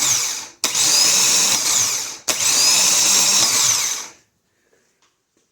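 Freshly repaired Ford PMGR (permanent-magnet gear-reduction) starter from a 1995 F-150 spinning free on the test bench, powered through test leads. It runs in three bursts: one already running cuts off just after the start, then two more each whine up to speed, run about a second and a half, and wind down, the last stopping about four seconds in.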